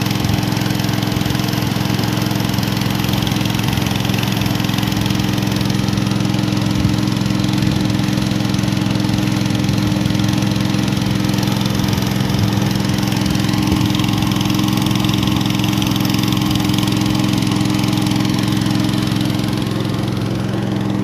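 Small wooden river boat's engine running at a steady cruising speed, an even, unchanging drone as the boat travels along the river.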